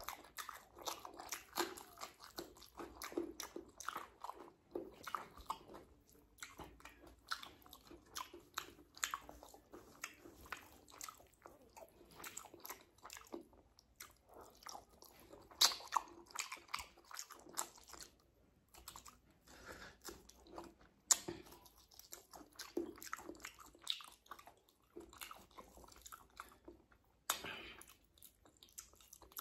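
Close-up sounds of a man eating rice and egg curry by hand: chewing and mouth noises, with many irregular short wet clicks.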